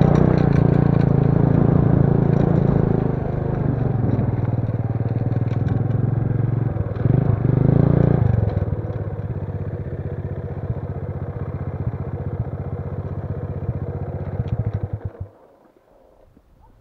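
Small motorcycle engine running as it rides a gravel track, easing off to a quieter, even putter after a brief surge about eight seconds in, then switched off suddenly near the end.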